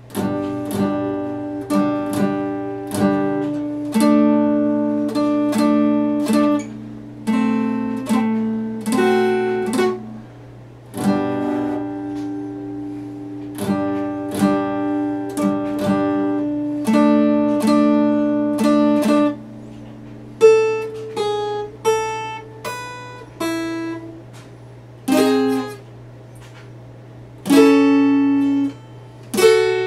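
Epiphone acoustic guitar played solo: picked chords and melody notes ringing in phrases with short pauses, turning to sparser single notes in the second half. A steady low hum runs underneath.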